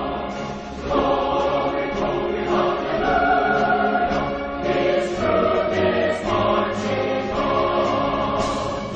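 Music with a choir singing long held chords that change about every second.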